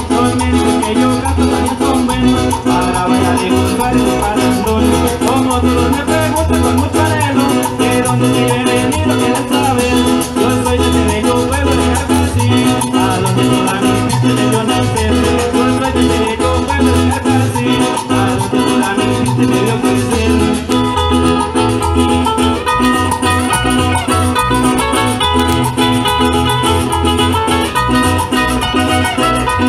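Colombian merengue campesino played live by a string band: acoustic guitars strumming and picking a busy, even rhythm over a steady low beat.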